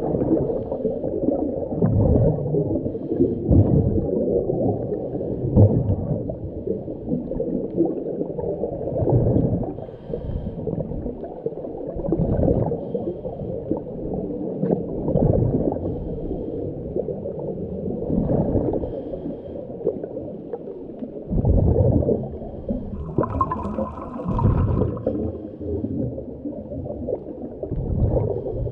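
Muffled underwater sound as heard by a submerged camera: low rumbling and gurgling water that swells and fades every few seconds. About two-thirds of the way through, a brief higher-pitched squeal rises above it.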